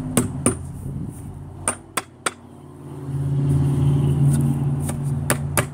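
A small soft-faced mallet knocking on the wooden frame of a triangle stool, tapping its joints home: three quick knocks at the start, three more around two seconds in, and two near the end. Under them a car engine runs with a low hum that swells loudest in the middle.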